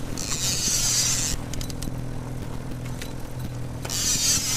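Boat motor running steadily at trolling speed, a constant low hum. Two bursts of hiss break over it, one at the start lasting about a second and another near the end.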